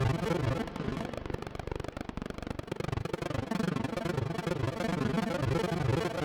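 Akai AX60 analog synthesizer playing a low, pulsing patch with added reverb and delay; the sound dips in level about a second in and swells back.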